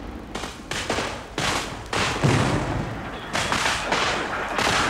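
Battle sound effects: a ragged string of about half a dozen gunshots, each with an echoing tail, and a deeper boom about two seconds in, over a rising din of battle noise near the end.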